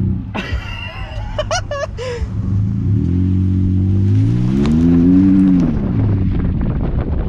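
Car engine revving up and back down while driving an off-road mud trail. A brief high, wavering sound comes in the first two seconds.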